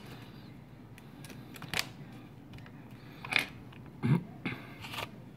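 Scattered light clicks and taps of small plastic and metal phone parts being handled and fitted together during reassembly of a smartphone, about five separate knocks.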